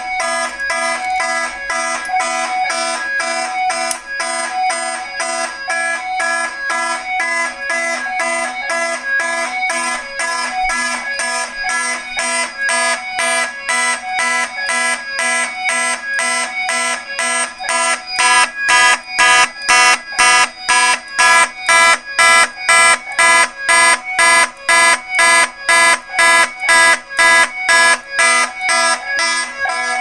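Fire alarm horns, a Simplex 2901-9838 and an FCI HP, sounding in march time at about two blasts a second, with a steady lower tone underneath. The system is in alarm after a pull station was pulled. The sound gets louder about 18 seconds in.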